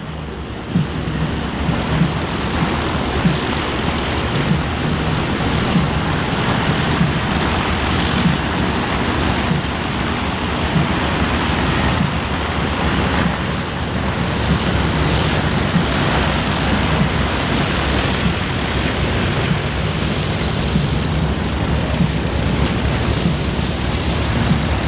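Piston engines and propellers of a formation of Van's RV aircraft flying their display, a steady drone with a low engine note that comes and goes.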